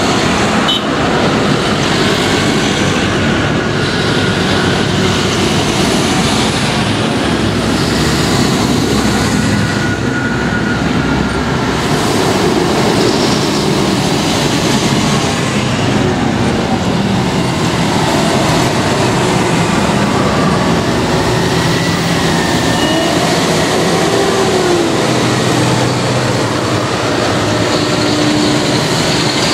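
A procession of large modern farm tractors, among them a Fendt and a JCB Fastrac, driving past one after another. Their diesel engines run and their big tyres hum on the road in a loud, steady rumble, with the pitch gliding as tractors go by.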